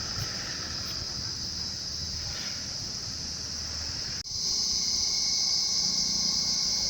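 A steady, high-pitched insect chorus. It breaks off for an instant a little over four seconds in and comes back louder.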